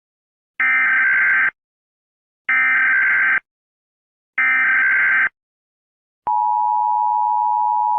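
Emergency Alert System signal: three short bursts of buzzy digital SAME header data, about two seconds apart, then the steady two-tone attention signal starting about six seconds in.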